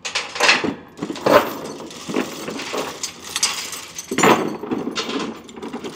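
Steel tie-down chains and load binders being released and pulled off a tractor on a wooden trailer deck: rattling and clanking, with a few loud knocks of chain and hardware hitting the boards.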